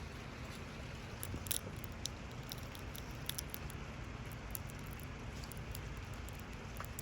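Light rain pattering: scattered small drops ticking over a steady low rumble.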